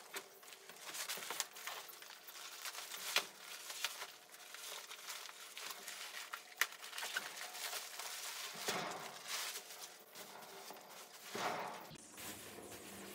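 Rustling and crinkling of a plastic bag of compressed wood shavings being emptied, then boots stamping the block of shavings apart on a horse trailer's floor, with scattered small knocks and the rustle of loose shavings.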